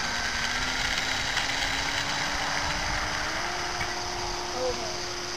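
Brushless electric motor and propeller of a Flyzone Cessna 182 RC model plane whining during its takeoff run, the pitch stepping up about three seconds in as the motor speeds up.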